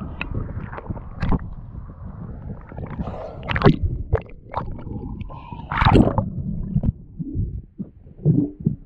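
Sea water sloshing and gurgling around a diver's action camera as it goes under the surface, with muffled bubbling underwater and a series of irregular knocks and splashes.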